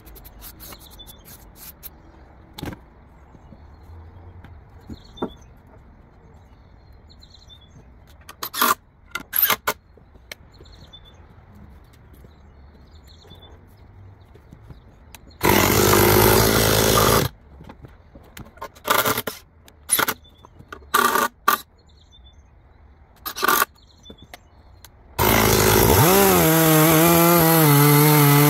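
Mostly quiet, broken by a few short loud noises and a two-second rush of noise in the middle. Near the end a gasoline chainsaw revs up, its pitch rising, then runs at high, steady throttle with a slight waver as it rip-cuts lengthwise along an apple log on a chainsaw-mill jig.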